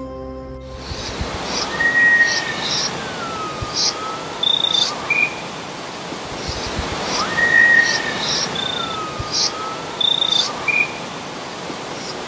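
Outdoor ambience: a steady rushing wash with bird calls over it. The same phrase comes twice, about five and a half seconds apart: a long whistle that slides down, then a cluster of short high chirps and two brief clear notes. It begins about a second in, as music fades out.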